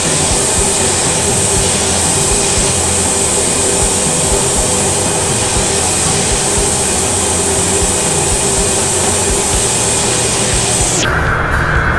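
Steady, loud hiss and rumble of a compressed-air spray gun applying Cerakote. It cuts off abruptly about eleven seconds in, and music takes over.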